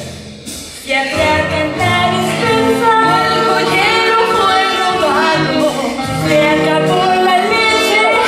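Stage musical number performed live: women singing over the band's accompaniment, the music coming back in strongly about a second in after a brief quieter moment.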